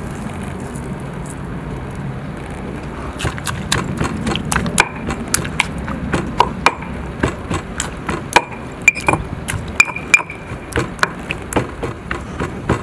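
Stone pestle mashing roasted tomatoes and sliced onion in a stone mortar: wet pounding with sharp clicks of stone knocking on stone, a few each second and uneven, starting about three seconds in.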